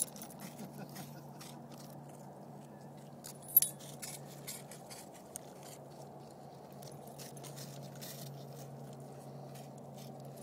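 Dog collar tags jingling in scattered light clicks as the dogs move about, with one sharper clink about three and a half seconds in, over a steady low hum.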